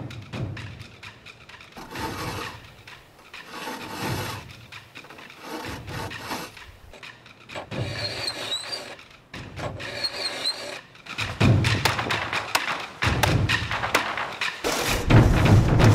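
Background music of Japanese drumming, with drum strikes that come about every two seconds and grow louder and busier over the last few seconds.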